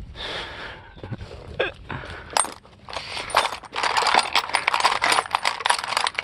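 Small metal pieces clinking and rattling in quick, irregular clicks, growing denser and busier over the last few seconds.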